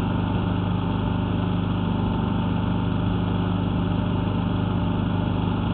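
An engine running steadily at an even speed, a constant hum that does not change.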